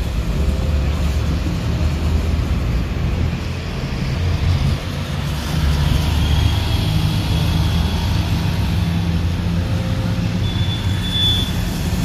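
Steady road-traffic rumble beside a busy multi-lane road, heavy in the bass and rising and falling slightly, with a faint high tone twice.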